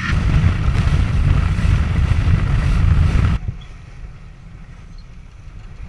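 Wind buffeting the microphone aboard a sailboat under sail: a loud, rough rushing noise that drops abruptly to a much quieter steady rush about three and a half seconds in.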